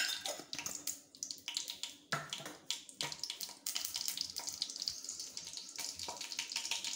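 Mustard seeds crackling and popping in hot oil in a stainless steel kadai, with scattered sharp pops and a frying sizzle that builds through the second half as the seeds begin to splutter.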